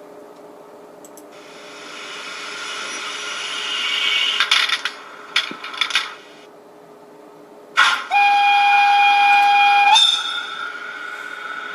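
Digital sound decoder in a model of the SBB Ae 8/14 electric locomotive playing its start-up sounds through the model's small speaker. A hiss of air builds up, a few sharp clicks follow, and then a loud whistle note holds for about two seconds, stepping up in pitch at its end, with a steady tone continuing after it.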